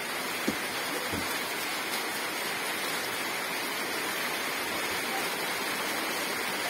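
Steady rushing hiss, with one brief click about half a second in.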